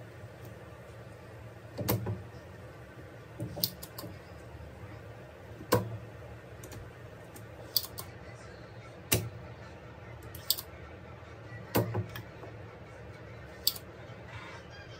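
Scattered sharp clicks and light taps of hand tools, a screwdriver and a soldering iron, against an inverter air-conditioner circuit board and the bench, about nine in all at uneven intervals, over a steady low hum.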